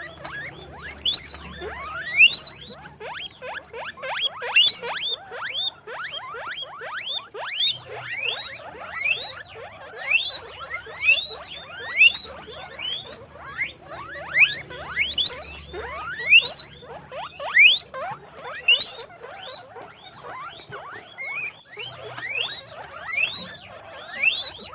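Guinea pigs squealing (wheeking): a rapid, continuous run of high, whistling calls that sweep up and fall away, several a second and overlapping.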